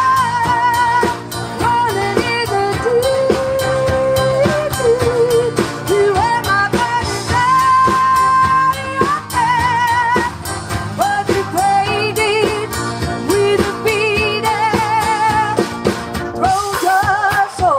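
Live band music: a lead melody of held notes, some wavering, over bass and a steady drum beat.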